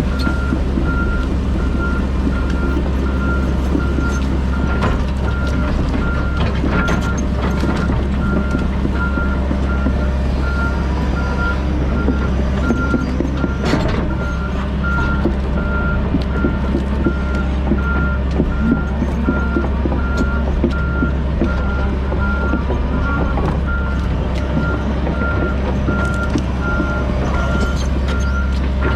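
John Deere 130G excavator's diesel engine running under load, with its travel alarm beeping steadily as the machine moves; the beeping stops near the end. Scattered cracks and knocks of brush and wood are heard over the engine.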